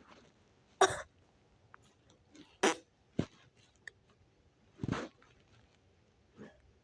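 A person making short mouth noises: about five separate sharp bursts with faint clicks between them, the loudest about a second in and near three seconds.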